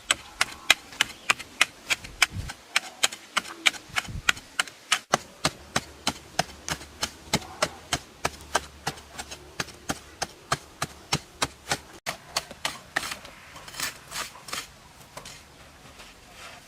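A hand tool striking a hard surface in quick, even taps, about four a second, giving way near the end to a few slower, broader strokes.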